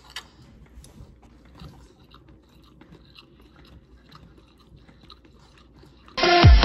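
A person chewing a mouthful of fried braised tofu (dubu jorim), with faint, irregular soft crunching and a sharp click just after the start. Loud electronic music with a heavy beat cuts in near the end.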